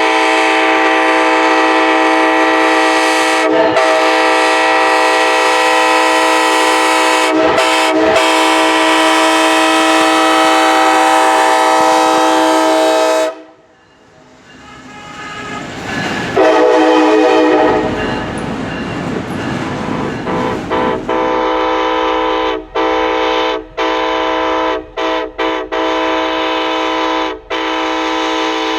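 Union Pacific SD70ACe-T4 locomotive's multi-chime air horn sounding a long held chord with a few brief breaks, then cutting off about halfway through. After several seconds of train noise, the horn comes back on and is played in a run of short stuttering toots near the end.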